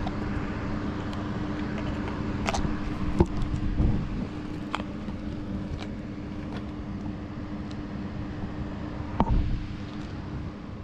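Steady low hum with scattered light taps and clicks from packages being handled, and two louder knocks, one about three seconds in and one about nine seconds in.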